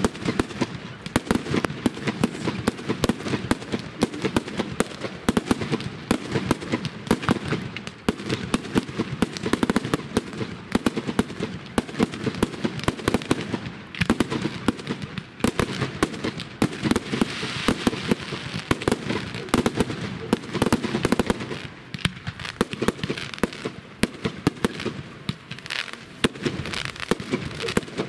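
Fireworks display: a dense, continuous barrage of shell bursts, many bangs a second, with crackling between them.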